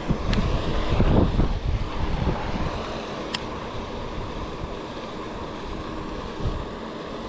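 Wind buffeting the microphone in gusts, heaviest in the first couple of seconds and then easing to a steadier rush. Two faint short ticks sound through it, one right at the start and one about three seconds later.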